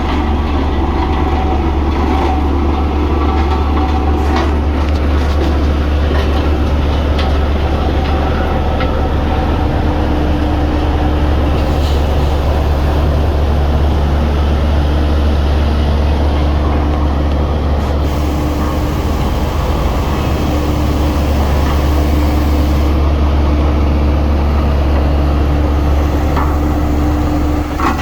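Heavy earthmoving machine's diesel engine running steadily with a deep, constant drone. From about ten seconds in, a steadier mid-pitched hum comes and goes.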